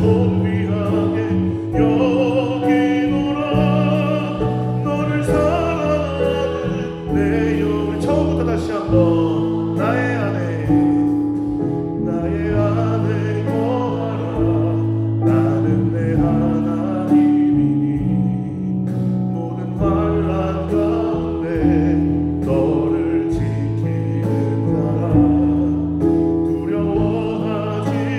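Church worship band playing a gospel praise song: voices singing over electric bass guitar, drum kit and keyboard.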